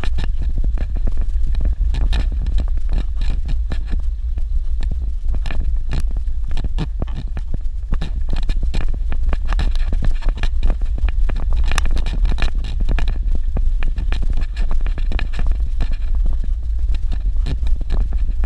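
Suzuki Jimny driving over a rough dirt road, heard from inside: a steady low rumble with constant rattling and knocking.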